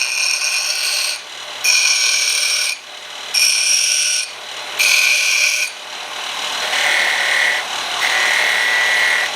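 Steel pieces pressed against a spinning wire wheel on a grinder to clean off forge scale, in four short passes of about a second each, then held on more steadily for the last few seconds.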